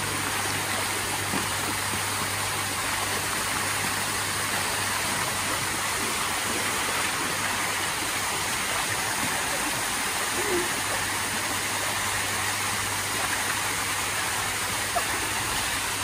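Artificial waterfall pouring into a pool: a steady rush of falling water, with a low steady hum underneath.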